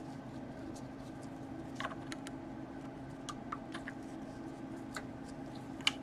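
Faint, scattered small clicks and scrapes of a small hand tool scraping old glue off the plastic of a laptop chassis, the loudest click near the end, over a steady low hum.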